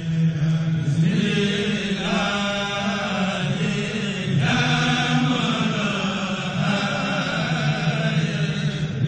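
Voices chanting an Arabic religious poem (a Mouride khassida) in long held, melismatic notes, the melody shifting every second or two.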